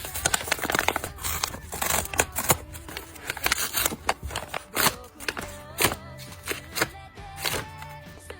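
Paper crinkling and rustling close to the microphone, with many sharp, irregular crackles, as a paper blind bag is handled and opened.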